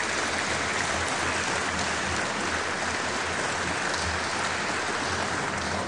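An audience applauding: dense, steady clapping at an even level.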